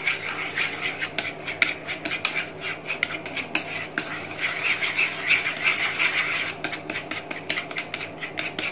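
A utensil repeatedly scraping and tapping against a nonstick frying pan as a thick chili sauce is stirred, over the steady sizzle of the sauce simmering.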